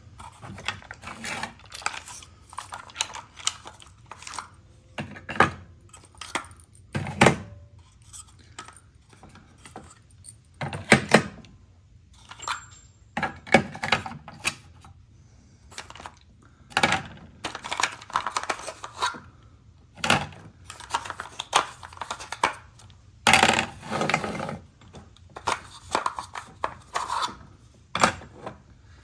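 Irregular clicks, knocks and short clatter of small hardware and wooden parts being handled and set down during hand work at a workbench.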